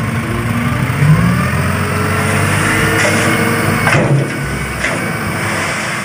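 Light dump truck's diesel engine running under load as the loaded bed is tipped, with a few rising and falling tones in the noise.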